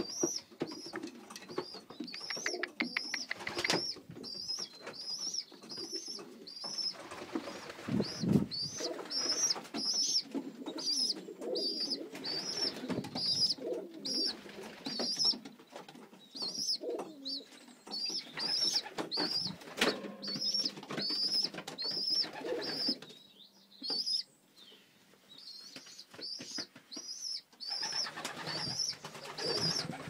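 Young pigeons cooing, with a high, thin peep repeated steadily about every two-thirds of a second that drops out for a few seconds in the second half.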